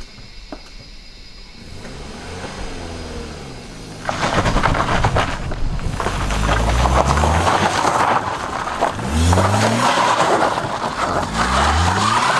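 A motor vehicle's engine accelerating, rising in pitch several times, over a steady rushing road or wind noise that grows louder about four seconds in.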